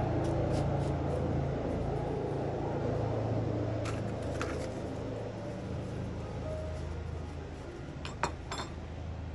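Metal palette knife scraping and clicking on the paper-covered work surface as it slides under a cut round of tart dough and lifts it. There are a couple of light clicks about four seconds in and a quick run of sharper clicks near the end, over a steady low hum of room noise.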